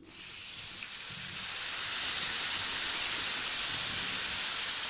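Water poured into a hot pan of oil-roasted gram flour and semolina, hissing and sizzling as it hits the hot fat. It starts suddenly, builds over the first couple of seconds, then holds as a steady sizzle.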